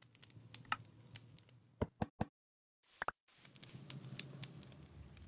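A series of sharp clicks and knocks over a faint low rumble. Three louder clicks come in quick succession about two seconds in and another about a second later, with the sound cutting to dead silence between them.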